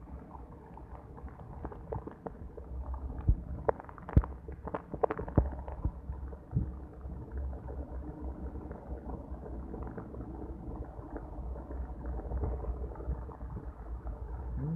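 Heavy rain heard through a wet phone microphone: a muffled, rumbling hiss, with a cluster of sharp taps and knocks about three to six seconds in.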